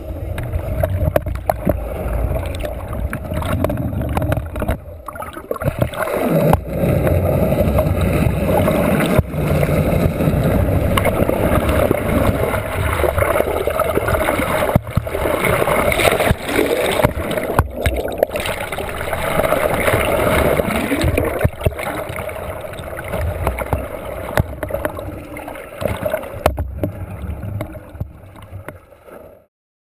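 Boat on the open sea with water rushing and gurgling close to the microphone.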